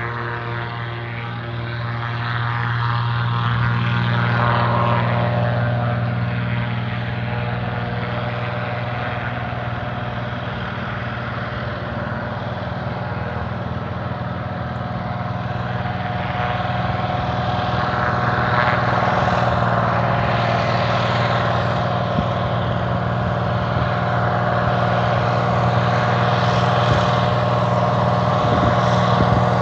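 Floatplane's piston engine and propeller running steadily, growing louder a few seconds in, easing off, then growing louder again over the second half.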